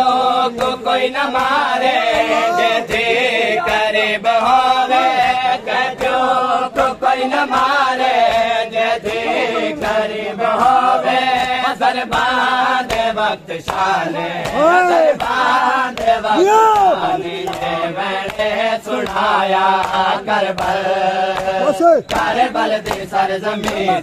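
A group of men chanting a Punjabi noha, a Shia lament for Karbala, with the rhythmic slaps of hands beating on bare chests (matam) keeping time under the voices.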